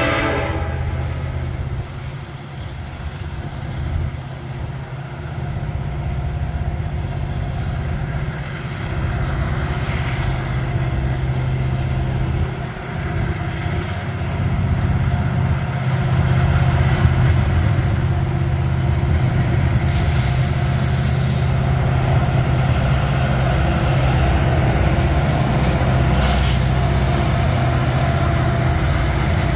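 Kansas City Southern diesel freight locomotive approaching, a steady low engine rumble that grows louder as it nears; the last of its horn cuts off just as it begins.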